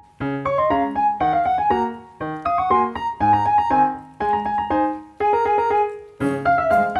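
Background piano music: gentle phrases of struck notes, each phrase about a second long with brief pauses between, with a soft high shimmer added near the end.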